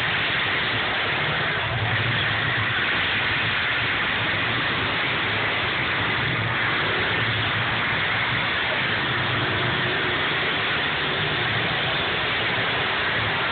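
Engines of several demolition derby cars running and revving in the arena, a steady noisy drone whose low rumble swells and fades every second or two.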